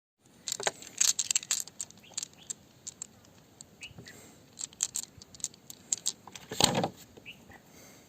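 An irregular run of sharp clicks and clinks from small hard objects knocking together, with one louder knock near the end.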